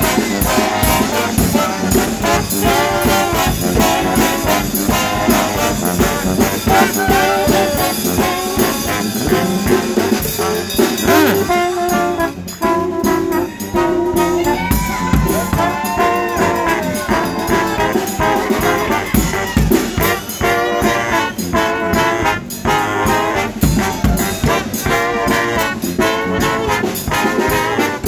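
Live band music led by horns: a trombone playing close by, with other brass and steady drums behind it.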